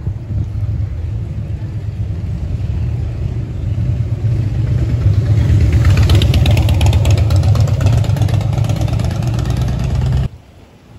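A motorcycle engine coming up the street, growing louder from about halfway through as it nears, over a steady low rumble of wind on the microphone. It all cuts off suddenly just before the end.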